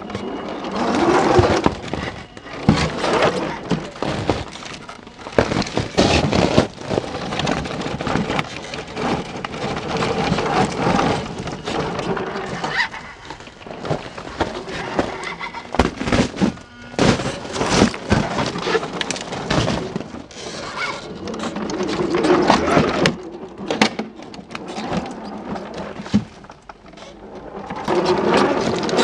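1/10 scale RC rock crawler climbing over boulders: many clicks, knocks and scrapes of its tyres and chassis against stone, with the small electric motor and gears running under load.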